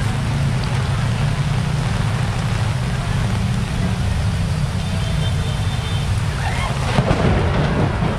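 Torrential typhoon rain pouring onto a flooded street: a steady hiss over a dense low rumble. Faint voices come in near the end.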